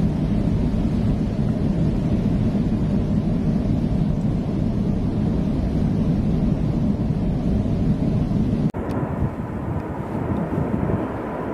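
Steady low rumbling roar of Mount Etna's lava fountain and ash eruption. The roar breaks off for an instant about nine seconds in and goes on a little quieter.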